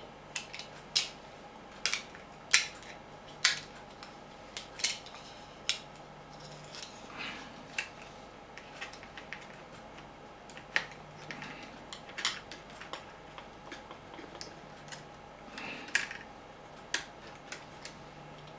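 Small plastic and metal parts being handled on a workbench: irregular sharp clicks and taps, about one every second or two, over a faint steady low hum.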